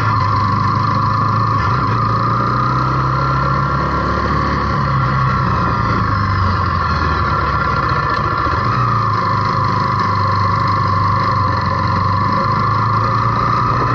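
Zontes T350 motorcycle's single-cylinder engine running under steady load while riding, its note rising and falling a little. Wind rushes over the microphone.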